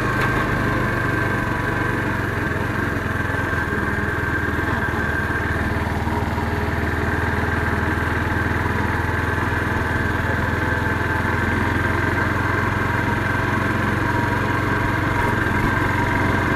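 Motorcycle engine running steadily as the bike cruises along at an even pace.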